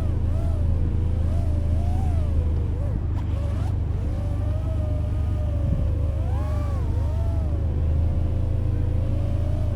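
Nazgul Evoque F5 five-inch FPV freestyle quadcopter's motors whining, the pitch rising and falling as the throttle changes, over a steady low rumble.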